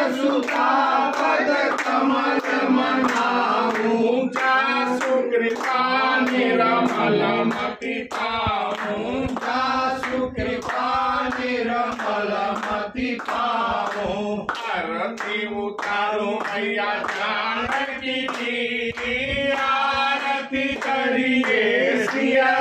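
Group of voices singing a devotional aarti hymn, with steady hand-clapping keeping the beat throughout.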